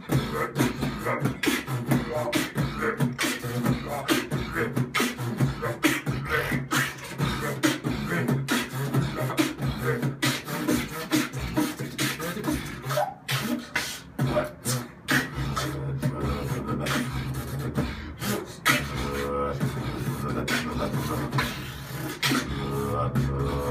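Beatboxing: a fast, steady beat of vocal kick-drum and snare clicks. In the second half a continuous low bass hum joins under the beat, with short pitched vocal lines near the end.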